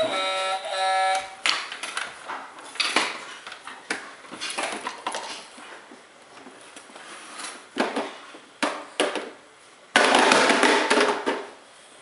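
Electronic beeping tones from a Cat ride-on toy truck's sound steering wheel for about the first second, then scattered plastic clattering and knocks from the toy being handled. A loud, rough burst of noise lasts about a second and a half near the end.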